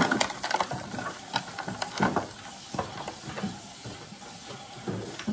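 Stiff clear plastic blister packaging crackling and clicking irregularly as hands twist and pry at it, trying to free a small action-figure accessory, with a sharp knock right at the start.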